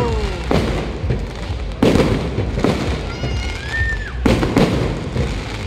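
Fireworks going off close by: a string of sharp bangs, about five of them, over a continuous crackle and hiss.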